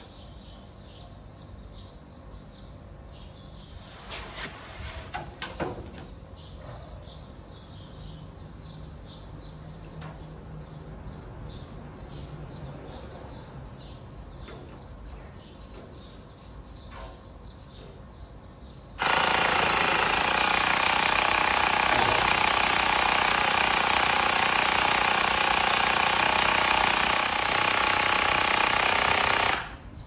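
Small portable electric bike pump running loudly and steadily for about ten seconds, starting suddenly about two-thirds of the way in, as it pressurises a plastic bottle. It cuts off shortly before the end, having reached its 150 psi maximum. Before it starts there is only faint birdsong.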